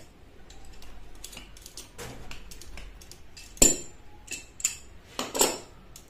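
Bicycle chain and steel pliers clicking and clinking as a stiff, freshly riveted chain link is twisted side to side and up and down to loosen it. There is one sharp metallic click about halfway through, the loudest, and a few more near the end.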